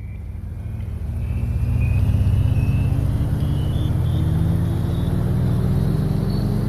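Car engine running under acceleration, its pitch rising slowly and steadily as the car speeds up, with road noise underneath; it grows louder over the first two seconds.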